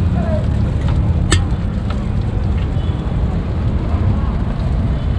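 Steady low roar of a street-stall gas burner under a wok of frying vegetables, with one sharp clink about a second and a half in.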